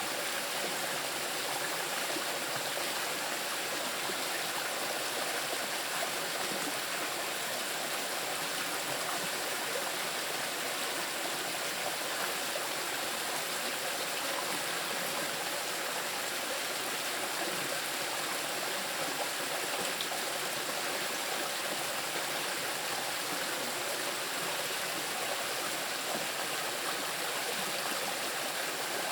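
Small river rushing steadily over rocks: a constant, even wash of flowing water.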